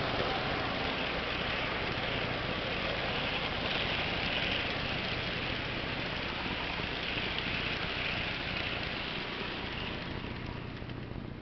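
HO scale model freight cars rolling past on track: a steady rattling rush of small metal wheels on the rails, with a low hum underneath. It grows a little quieter near the end.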